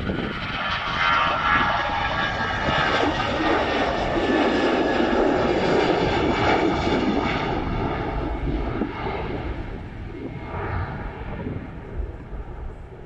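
Airbus A319-112's CFM56 turbofan engines at takeoff thrust as the jet lifts off and climbs past, a loud rushing jet noise with a whining fan tone. The sound fades steadily over the last few seconds as the aircraft climbs away.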